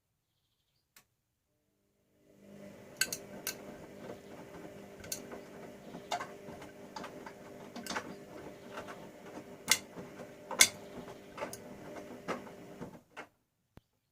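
Bauknecht front-loading washing machine turning its drum during the wash: the motor starts about two seconds in and runs with a steady hum, with scattered sharp clicks and knocks from the tumbling laundry, then stops about a second before the end.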